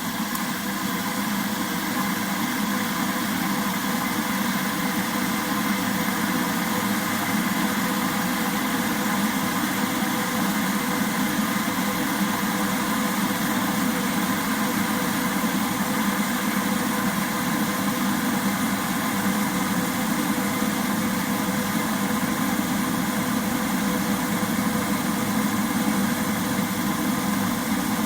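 Electric kettle heating water: a steady rumble and hiss that holds level throughout.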